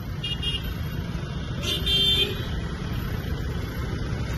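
Dense city road traffic: a steady rumble of engines and tyres with vehicle horns honking, a short honk just after the start and a longer, louder one about two seconds in.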